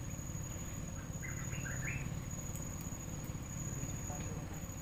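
Riverside ambience: insects droning steadily on one high thin tone over a low rumble, with a few short bird chirps about a second and a half in.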